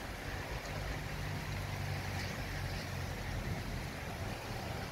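Heavy rain falling steadily over a street, a continuous even hiss. A low hum sits under it for the first couple of seconds.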